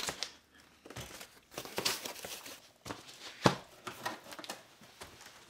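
Unboxing handling: a cardboard box being opened and a foam-wrapped honeycomb bed pulled out, with rustling and crinkling of the foam wrap and cardboard. A few sharp knocks come through, the loudest about three and a half seconds in.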